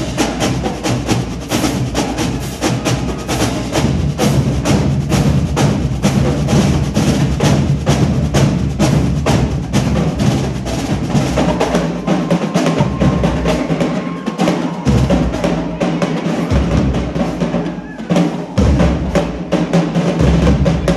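Marching drumline of snare drums and bass drums playing a loud cadence: a fast, even stream of sharp snare strikes over deep bass-drum hits that drop out in places.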